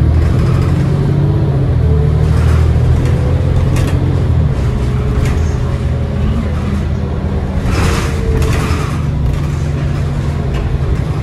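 Cummins ISL 8.9-litre six-cylinder diesel engine of a 2010 New Flyer D40LF city bus running under way, heard from inside the bus, its pitch rising and falling gently, with a short rushing noise about eight seconds in.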